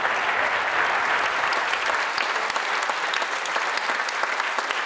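Audience applauding steadily after a talk ends.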